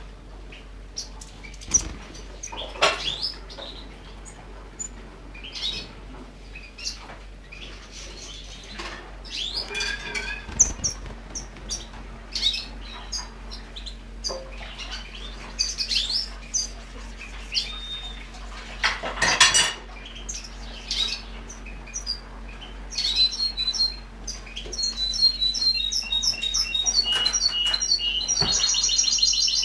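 European goldfinches chirping and twittering, with a few sharp knocks. A fast, busy run of song notes builds up over the last several seconds.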